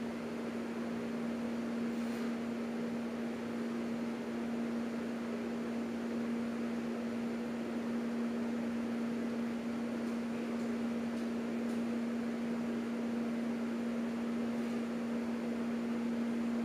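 Electric sewing machine running at a steady speed while stitching a seam, giving one even, unbroken hum.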